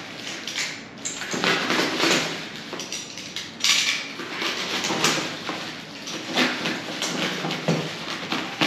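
Packaging being handled and opened by hand: irregular rustling and scraping, with several sharp knocks, the loudest about three and a half seconds in.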